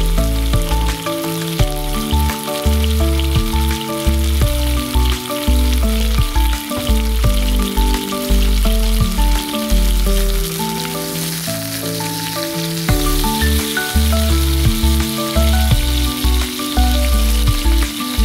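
Asparagus-stuffed chicken breast sizzling steadily as it fries in a hot pan, under background music with a bass line.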